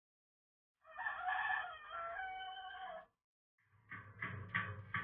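A rooster crowing: one long crow of about two seconds, followed after a short pause by a string of about six short, evenly spaced clucks.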